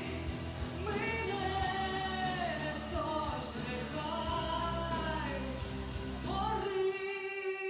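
A woman singing a pop-rock song over instrumental accompaniment, with long held notes. The accompaniment's bass drops out a little before the end while she holds the final note.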